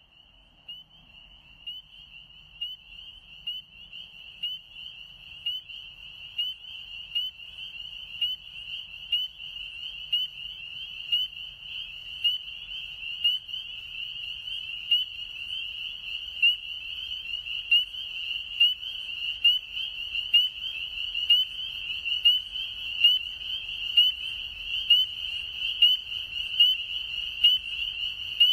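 Chorus of spring peepers: many high peeping calls overlapping into one steady, shrill band, with louder single peeps standing out about once a second. It fades in at the start and grows louder.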